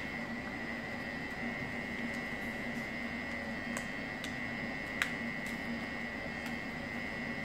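Sheet of paper being folded and creased by hand on a tabletop: faint rustling and a few light clicks, the sharpest about five seconds in. Under it runs a steady hum with a faint high whine.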